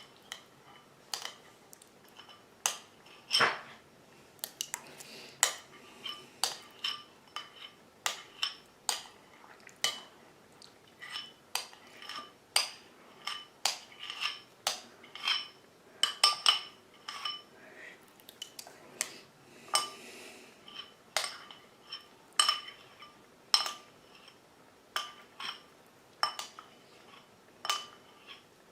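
Metal cutlery clinking against a plate during a meal: sharp, ringing clinks, irregular, about one or two a second.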